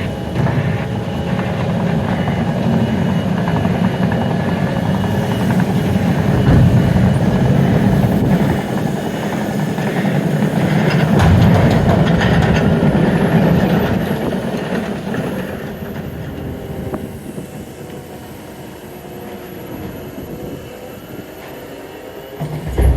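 A train running past on the rails, a low rumble of wheels and wagons that builds through the middle and fades away over the second half. A sudden thump near the end.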